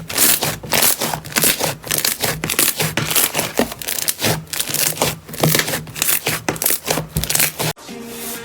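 Slime being squeezed and poked by hand, giving a dense, irregular run of sticky crackling clicks and pops. It cuts off suddenly near the end, and music comes in.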